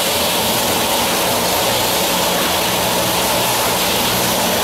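A spindle veneer peeling lathe running steadily while it peels a log into a continuous sheet of veneer. The noise is loud and even, a constant rushing over a low mechanical hum.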